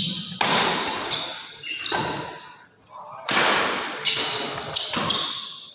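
Badminton rally: rackets strike the shuttlecock four times, about a second and a half apart. Each hit is sharp and echoes away in a reverberant hall.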